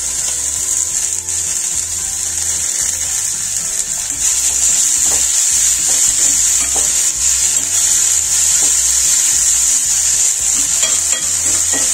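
Chopped tomatoes and greens sizzling in hot oil in a black wok on a gas burner, stirred with a spatula. The sizzle grows louder about four seconds in, after the tomatoes go in.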